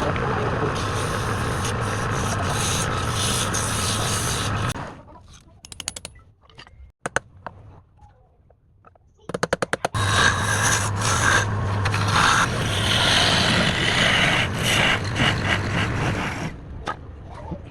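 Wood lathe running with a tool rubbing and scraping against the spinning wood. It stops for about five seconds partway through, with a few quick trains of clicks, then the lathe and scraping start again.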